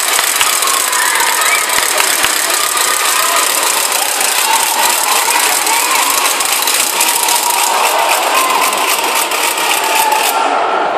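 Crowd in a gymnasium cheering and applauding, a loud, dense rattle of clapping with shouts mixed in; the din falls away sharply near the end.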